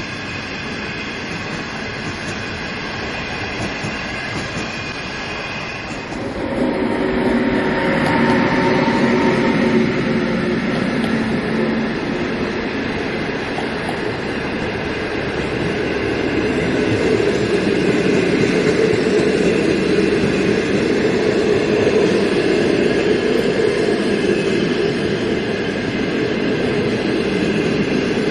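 Green passenger train coaches rolling past close by, steel wheels running on the rails. The sound jumps louder about six seconds in and stays steady after that.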